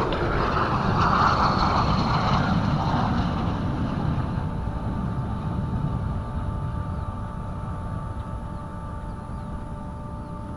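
Jet aircraft flying past: a loud rushing roar that fades away over several seconds as it recedes.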